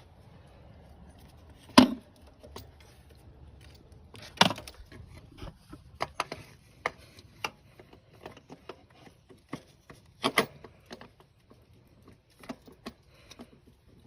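Irregular clanks, knocks and clicks of metal parts and hand tools as a replacement starter motor is worked into place under the hood. The loudest knock comes about two seconds in, with other sharp ones around four and ten seconds in.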